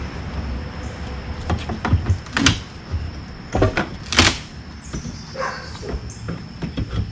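Sharp knocks and cracks of a hand tool working the old door frame loose at the top of the doorway: about five hits in the first four and a half seconds, the loudest about four seconds in, then a short creak a little past five seconds.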